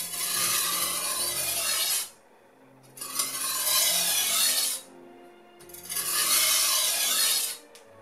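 Knife blade ground along a Fallkniven DC521 whetstone: three slow, even sharpening strokes of about two seconds each, each a dry, hissing scrape of steel on the abrasive face, with short pauses between them.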